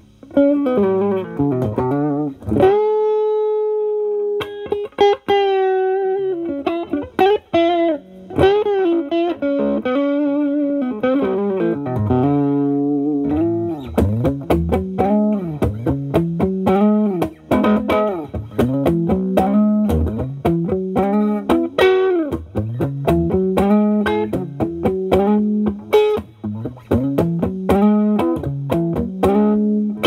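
Electric guitar (Gibson SG with humbuckers) played through an Ibanez TS9DX Turbo Tube Screamer overdrive in HOT mode into a clean amp channel: bluesy single-note lines with string bends and vibrato and a long held note early on. About halfway through it turns into a repeated, faster picked riff.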